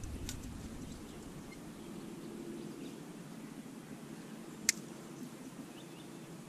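Steady low hum with faint handling noises as a largemouth bass is unhooked in an aluminium jon boat, and one sharp click about four and a half seconds in.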